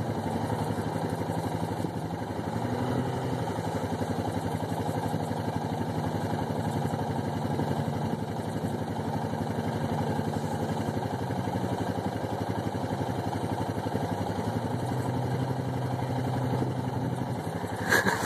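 A distant Saturn SL's 1.9-litre four-cylinder engine running as the car works in a mud pit, revving up twice, about two seconds in and again near the end. A brief sharp noise comes just before the end.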